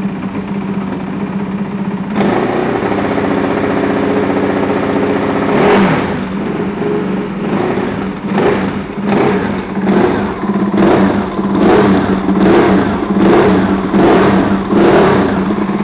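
Ducati 1299 Superleggera's 1285 cc Superquadro L-twin running at idle, its note growing fuller about two seconds in. It is blipped once near the middle, then revved in a quick run of about ten throttle blips.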